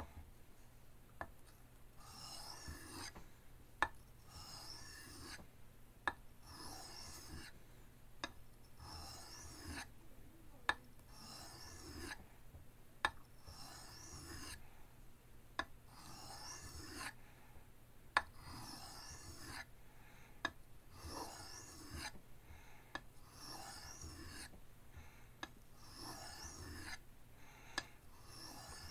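Steel knife blade drawn in repeated strokes across a soft Arkansas sharpening stone, a quiet rasp about once a second, with a sharp click every two seconds or so.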